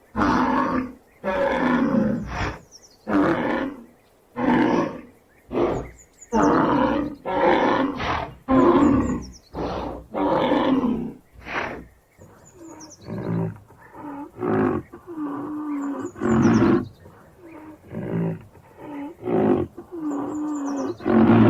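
Rhinoceros calling: a long series of harsh bellowing calls, each under a second, following one another about once a second. Small high bird chirps sound faintly above them several times.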